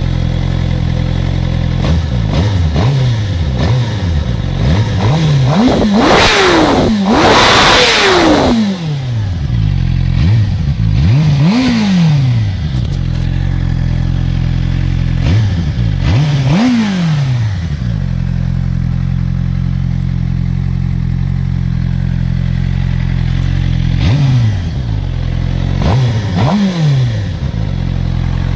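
2011 Suzuki GSX-R600's inline-four engine on its stock exhaust, idling and revved repeatedly. Several quick blips come first, then the two highest revs about six to eight seconds in, followed by single revs with steady idle between.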